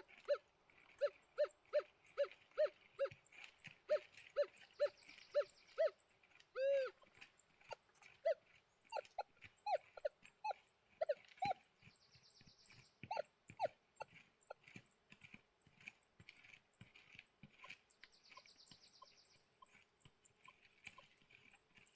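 Metal detector sounding short target beeps as the coil is swung, about two a second. Its low tone repeats at first, then comes one longer wavering tone, and from about eight seconds in the beeps rise to a higher pitch and grow sparser.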